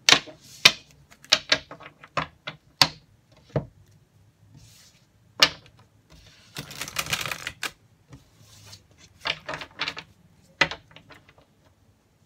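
A tarot deck being shuffled by hand over a wooden table: a run of sharp card snaps and taps, a longer rapid flutter of cards about seven seconds in, then more quick snaps near the end.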